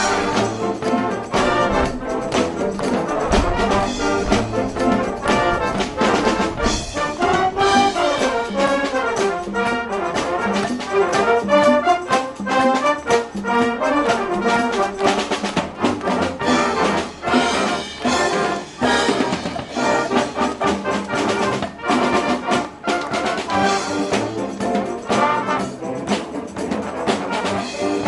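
A high school marching wind band playing live: full brass section with trombones and trumpets over a steady drum beat.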